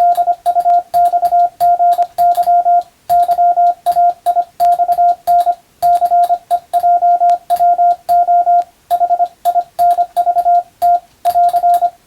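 Morse code (CW) sent as a single tone of about 700 Hz, keyed on and off in quick dots and dashes grouped into characters, with a sharp click at each start and stop of the tone. The sending stops near the end.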